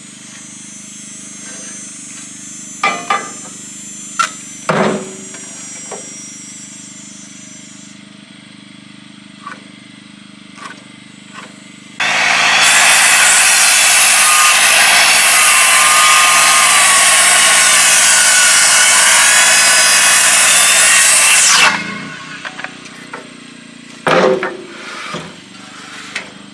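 Power saw cutting into a rough-sawn 6x6 timber post for about ten seconds, starting and stopping abruptly, with a few wooden knocks before and after as the post is handled.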